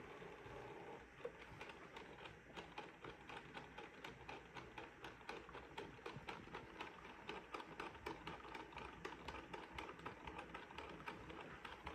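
Neato Botvac D Series robot vacuum driving across the floor, giving off faint rapid, irregular clicking over a low hum.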